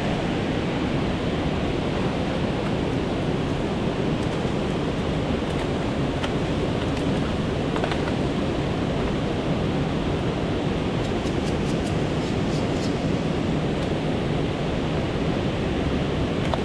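Steady rushing of flowing river water, an even noise with no change in level.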